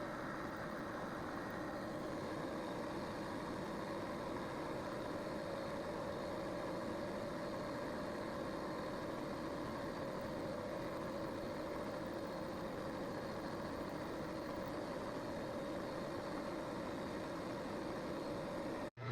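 Metal lathe running steadily, a constant motor hum with a held tone and no starts or stops.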